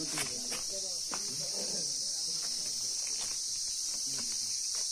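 A steady high-pitched hiss, with faint voices murmuring underneath and a few short crunches of footsteps on charred debris.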